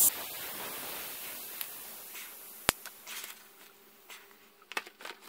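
Air hissing out of a bicycle tyre through a Schrader valve held open, fading away as the tyre goes flat. A sharp click about two and a half seconds in, then faint handling rustles and clicks.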